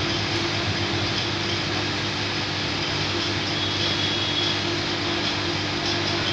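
U-bend pipe annealing machine running steadily while it heats a carbon-steel U-bend pipe, giving a constant electrical hum under an even hiss.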